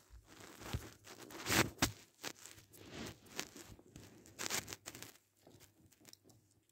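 Plastic blister and cardboard backing card of a Hot Wheels package being torn and crinkled apart by hand, in irregular crackling bursts. The loudest bursts come about a second and a half in and again after four and a half seconds, and the sound thins out near the end.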